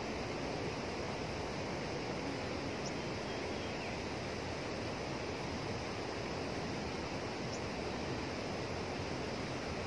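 Fast, turbulent water rushing steadily through a canal below a sluice gate, heard as an even, unbroken hiss.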